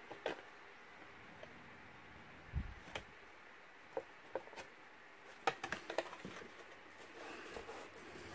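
Kraft cardstock box being handled and turned in the hands: scattered light taps and rustles of card, with a soft low bump about two and a half seconds in and a quick cluster of taps a little past halfway.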